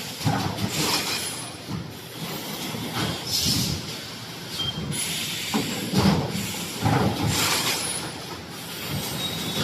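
Steel wire-mesh welding machine for 3D EPS wall panels running, making one-side mesh panels: uneven metallic knocks and clatter, with short air hisses such as one about three and a half seconds in.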